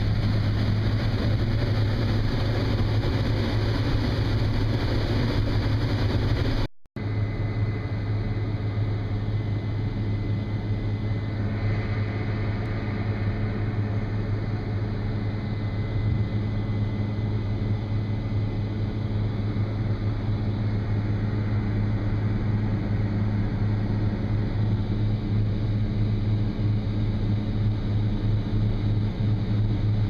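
Case IH 7120 combine heard from inside its cab while harvesting corn: a steady low drone of the engine and threshing machinery. The sound cuts out briefly about seven seconds in, then resumes with less hiss and a faint high whine for a while.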